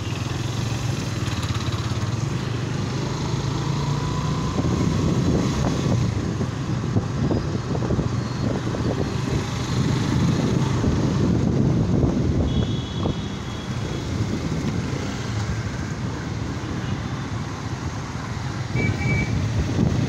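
Small motorcycle engine running at low speed in slow city traffic, with the rumble of surrounding cars and motorcycles. A short high beep sounds about two-thirds of the way through, and another near the end.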